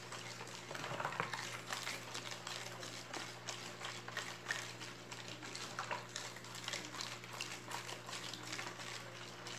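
A plastic spoon stirring a caustic soda solution in a plastic basin, giving irregular light scrapes and clicks as the caustic soda flakes dissolve in coconut milk and detergent, over a steady low hum.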